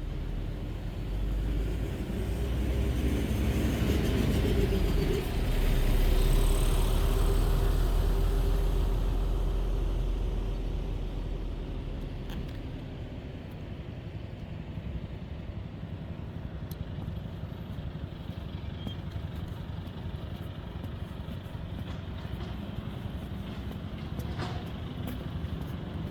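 A motor vehicle passing close on the street, its engine and tyre noise swelling for several seconds and fading away, followed by a steady background of city traffic.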